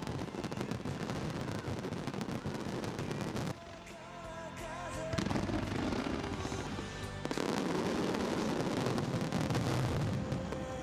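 Aerial fireworks bursting and crackling in a dense run of sharp cracks, with music playing underneath. About three and a half seconds in, the crackle drops away and the music comes through. The bursts build again, and from about seven seconds a second dense stretch of cracks and bangs follows.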